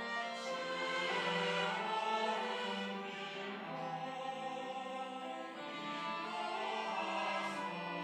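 Mixed church choir singing a slow anthem, its voices holding long notes, with violins playing along.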